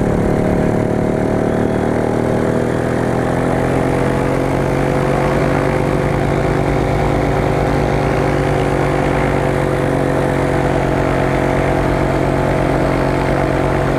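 Aerolite 103 ultralight's engine running steadily as the aircraft rolls on a grass runway. The engine note rises a little about four seconds in and then holds.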